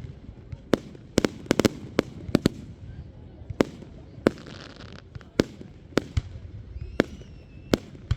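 Fireworks going off in a fast, irregular series of sharp bangs, with a crackling hiss about four seconds in.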